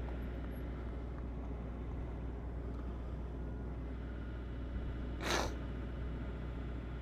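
Steady low engine drone, with one short burst of hiss about five seconds in.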